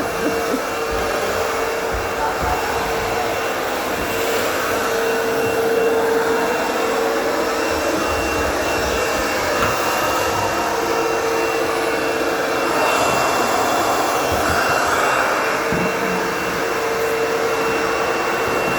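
Vacuum cleaner running steadily as it cleans carpeted stairs: a constant whine over rushing air. The whine dips briefly about two-thirds of the way through, then comes back.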